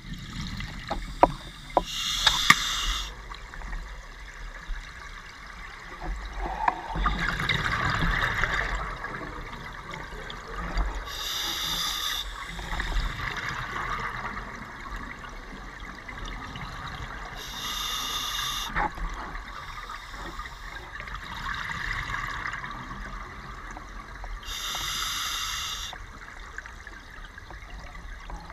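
Scuba diver's regulator breathing underwater: a breath every six seconds or so, each a short hiss followed by a swell of bubbling. A few sharp clicks come in the first few seconds.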